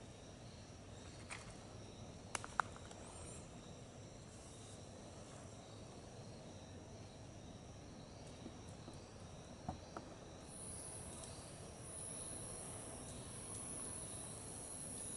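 Insects chirping steadily in several high-pitched bands, with a louder, very high insect buzz joining about ten seconds in. A few sharp clicks stand out, two close together about two and a half seconds in and two more near ten seconds.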